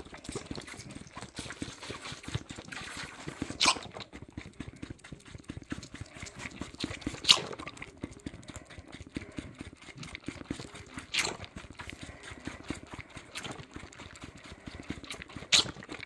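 Suffolk bottle lamb sucking milk from a feeding bottle, a fast, continuous sucking and slurping. A sharper click comes about every four seconds.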